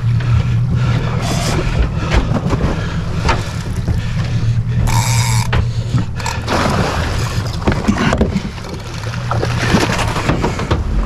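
Boat engine running steadily at low revs, with wind on the microphone and water splashing as a hooked southern bluefin tuna thrashes at the surface alongside the hull.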